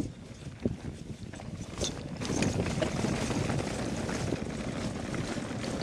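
Mountain bike rolling downhill, tyres and frame rattling over a rough stone track: a few separate knocks at first, then a steady, louder clatter from about two seconds in as the ground turns to packed stones.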